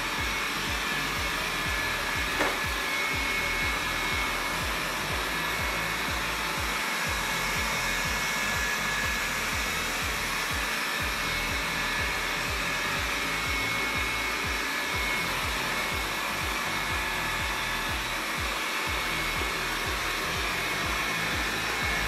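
Liectroux ZK901 robot vacuum cleaning: the steady whir of its suction fan, with a faint high whine.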